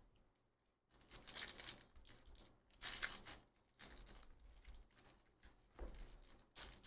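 Foil trading-card pack being torn open by hand, a few short, faint tearing and crinkling rips of the wrapper.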